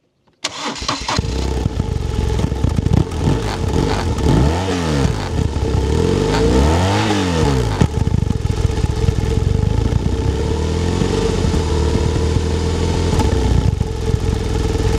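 BMW R1200R air-cooled boxer twin starting up about half a second in and settling into a steady idle, blipped twice with the throttle, about four and a half and seven seconds in, each rev rising and falling back, heard close at the chrome silencer.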